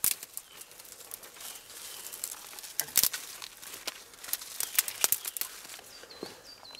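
Irregular rustling and crackling of dry leaves and twigs being disturbed, with sharp snaps scattered throughout. Near the end a small bird chirps a few times.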